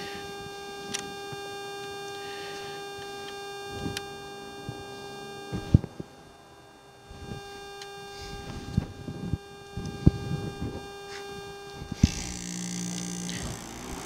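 A steady hum with a few light knocks, then about twelve seconds in a new Coleman rooftop RV air conditioner starts up, its fan and compressor coming on with a lower, steady running sound. This is the unit working after replacement: the sound of success.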